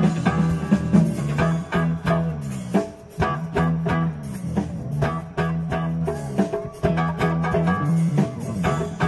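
Live band playing: electric guitar and bass guitar over drums, with a repeating bass line and a busy, steady beat.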